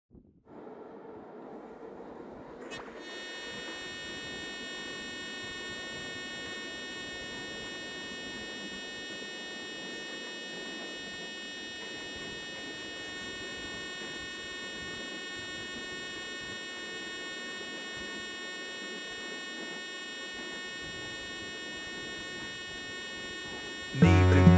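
Steady electronic synthesizer drone: a sustained buzzing tone with many overtones over a soft hiss, coming in about three seconds in and holding unchanged. Right at the end the song's drum machine and synthesizer start loudly.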